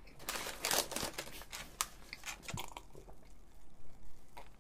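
Close-miked chewing of a mouthful of hamburger: moist crunching with many small wet mouth clicks, busiest in the first second. A sip from a paper cup follows near the end.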